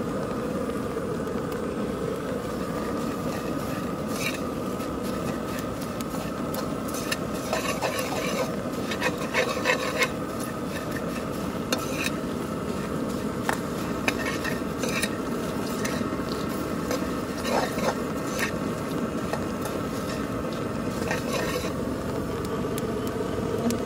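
A metal spoon and slotted ladle stir and scrape puffed rice around a steel pan, with dry rustling and irregular clinks against the pan's sides, as turmeric and chilli powder are tossed through the puffed rice. A steady hum runs underneath.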